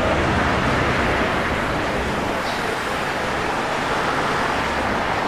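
Steady street ambience: an even, continuous rumble and hiss with no distinct events.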